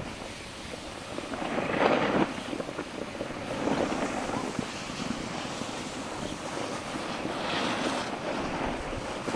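Wind rushing over a phone microphone while the filmer slides down a groomed ski slope, with the scraping hiss of sliding on snow swelling a few times.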